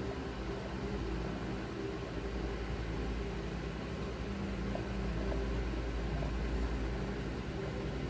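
Steady low mechanical hum with an even hiss, like a fan or electrical appliance running without change.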